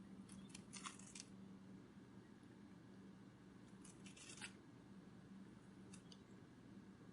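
Faint butterfly wing-flutter sound effect: short bursts of quick, crisp flapping clicks about a second in, around four seconds in and briefly near six seconds, over a low steady hum.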